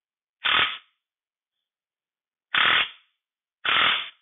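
Impact wrench hammering on the nut of an all-thread brake-drum puller in three short bursts, trying to pull a rusted-on brake drum off a 1953 Allis-Chalmers B final drive; the drum does not come free without heat.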